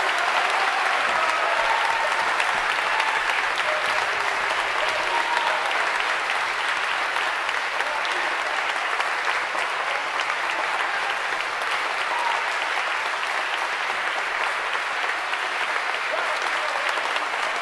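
Large audience applauding steadily, dense continuous clapping.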